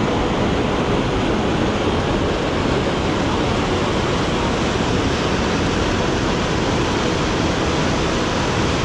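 Rushing mountain water, such as a waterfall or torrent: a loud, steady rush with no rhythm or pitch.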